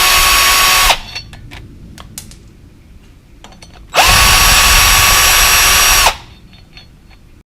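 Electric drill or driver run twice with a steady whine, backing out the brake rotor's Phillips retaining screws. The first run stops about a second in, the second starts about four seconds in and lasts about two seconds, with faint clicks of handling between them.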